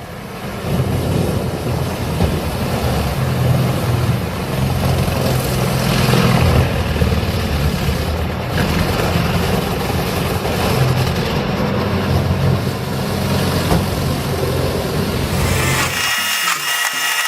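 A wood-processing machine running under load: a steady engine hum under the noise of wood being cut. About a second before the end it cuts off abruptly into a different, rhythmic machine sound.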